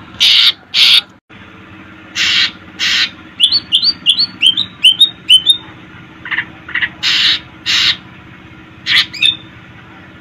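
A cucak ijo (leafbird) singing loudly: harsh, rasping calls given in pairs about half a second apart, three times over, with a quick run of about nine short rising chirps in the middle and a few shorter notes between.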